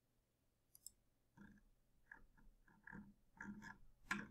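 Near silence with a few faint computer-mouse clicks, one a little before a second in and a sharper one just after four seconds.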